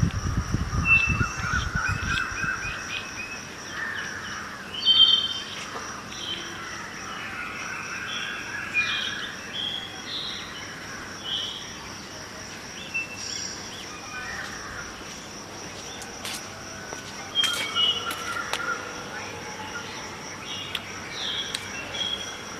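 Several birds chirping and trilling in a dawn chorus, with short calls overlapping throughout and a steady thin high tone underneath. Wind gusts buffet the microphone for the first couple of seconds.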